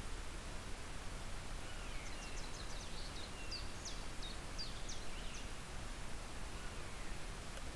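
Wild songbirds calling over a steady background hiss: a few thin falling whistles, and a run of short high notes in the middle.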